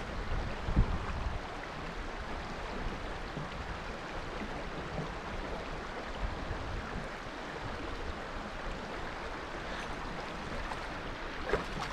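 Steady rushing of a shallow, stony creek flowing, with a couple of low bumps about a second in.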